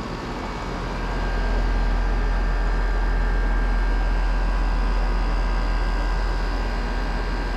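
Brand-new York LX Series 5-ton central air conditioner condenser running steadily: its Broad Ocean fan motor and LG scroll compressor give a steady whir with faint steady tones. A deep low rumble swells about a second in and then holds.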